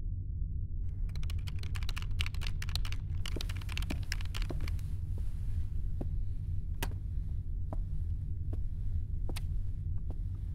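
Typing on a computer keyboard: a quick flurry of keystrokes starting about a second in, thinning to scattered single key presses after about five seconds, over a steady low hum.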